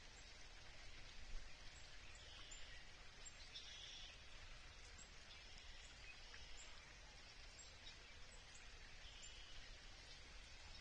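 Near silence: faint outdoor ambience, a soft steady hiss over a low rumble, with a few faint, brief high sounds.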